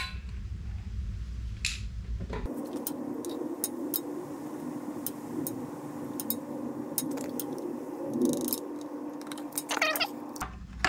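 Plastic oil funnel and oil bottle being handled at a motorcycle's oil filler while oil is added: scattered light clicks and taps over a faint steady hum.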